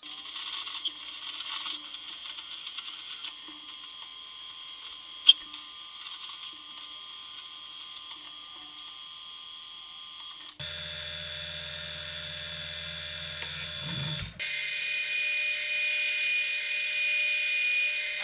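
Metal lathe cutting a round metal bar, running steadily with a high hiss and whine from the cut. The sound changes abruptly twice, about ten and fourteen seconds in, and a deeper motor hum is heard in the middle stretch.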